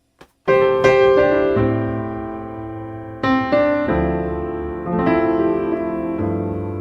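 Background piano music: chords struck and left to ring and fade, with new chords about every second or two, starting about half a second in after a short click.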